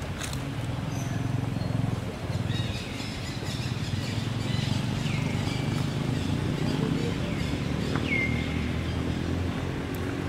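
Outdoor ambience: a steady low rumble with a few short, high chirps, two of which slide down in pitch, about five and eight seconds in.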